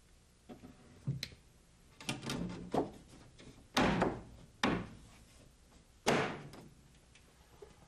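Knotty pine tongue-and-groove paneling boards being slid and pressed into place against the wall by hand: a series of separate wooden knocks and thuds with some scraping between them.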